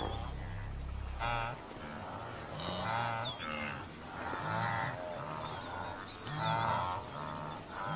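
A massed wildebeest herd calling, many overlapping nasal grunts and moans, with a faint high chirp repeating about twice a second. Background music fades out about a second in.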